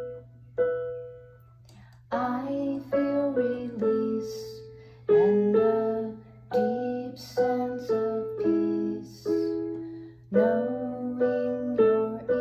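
Piano played in slow chords, each struck and left to ring and fade, with a pause of about a second and a half near the start.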